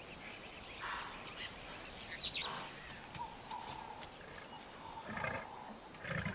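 Lions giving two short, low grunting calls about five and six seconds in, over quiet bush sounds.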